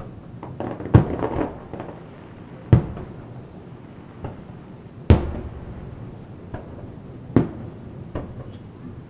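Aerial display firework shells bursting: four loud booms about two seconds apart, each trailing off in an echo, with fainter pops between them and a crackle after the first.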